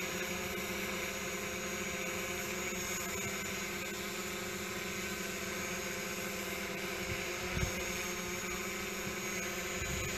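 Camera drone hovering, its propellers giving a steady whine of several even tones with a small bump about three-quarters of the way through.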